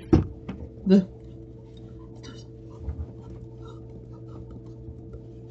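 A pause in speech: a steady low electrical hum from the microphone line, broken by a short vocal sound about a second in and a few faint clicks.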